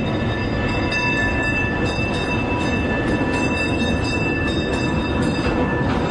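Tram running on its rails: a steady rumble with a high whine of several held tones and irregular clicks as the wheels pass over rail joints. The whine fades away near the end.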